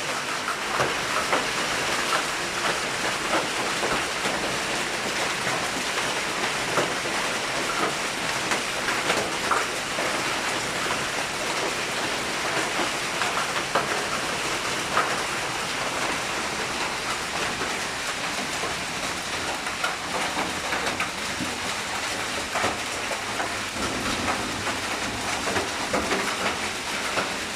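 Hailstorm: a steady hiss of falling rain and hail, with frequent sharp clicks of hailstones striking.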